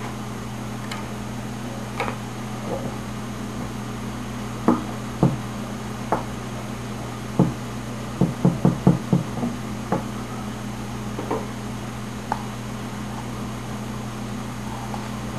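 Metal spoon knocking and scraping against a metal can while scooping out its contents: scattered sharp clinks, with a quick run of about six near the middle. A steady low electrical hum runs underneath.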